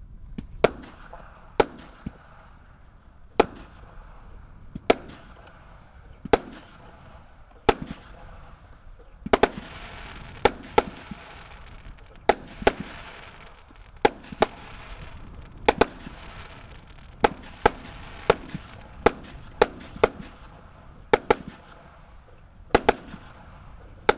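A 36-shot, 20 mm firework cake firing shot after shot: a quick string of sharp reports, about one or two a second and often in close pairs. Between them runs a crackling hiss from the glittering bursts, loudest around the middle.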